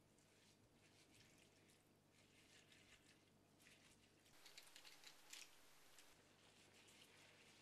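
Faint crackling and ticking of glass noodles and prawns cooking in sauce in a pot, with light touches of a wooden spatula. The crackles grow busier a little past halfway.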